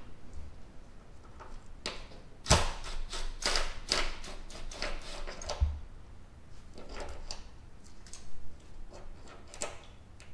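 Hand tool clicking, knocking and scraping against engine parts while working under the hood, with a sharp knock about two and a half seconds in and a cluster of rattling clicks after it.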